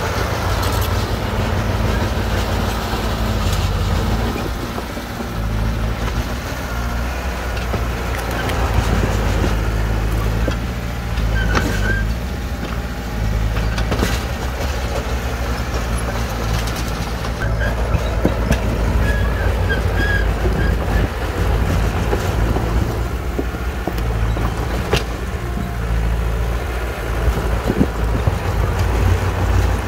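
Bulldozer's diesel engine running steadily under load, with a few sharp knocks along the way.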